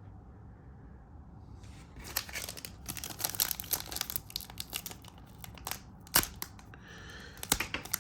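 Foil trading-card pack wrapper being torn open and crinkled by hand, starting about two seconds in, with a few sharp snaps along the way; the pack is hard to open.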